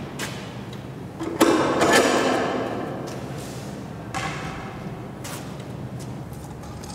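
Large thin acrylic (Plexiglas) discs on a rod being handled: a sudden rattle about a second and a half in that fades over a second or so, then lighter knocks twice.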